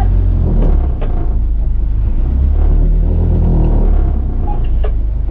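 Outrigger fishing boat's engine running with a steady low drone, with a couple of brief knocks.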